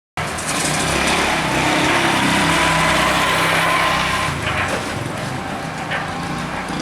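A small engine running steadily, easing off slightly about four seconds in.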